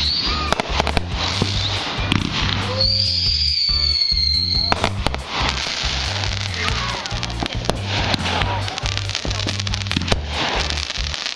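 Aerial fireworks bursting and crackling in quick succession, with a high, slightly falling whistle lasting about two seconds, starting about three seconds in. Music with a steady bass line plays underneath.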